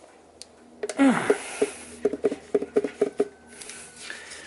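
Old diesel fuel filter element squeaking against its housing as it is twisted and pulled out by hand. A loud squeak falls in pitch with a scrape about a second in, then a quick run of short squeaks follows, about five a second, for just over a second.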